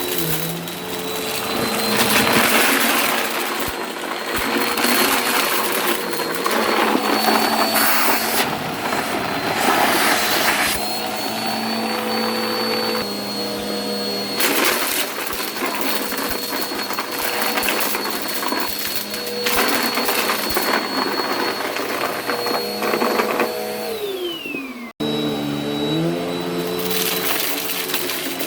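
Vacuum cleaner running steadily, with repeated rushing surges as it sucks up crunchy debris. Near the end the motor pitch drops, the sound breaks off for a moment, and then the vacuum runs again.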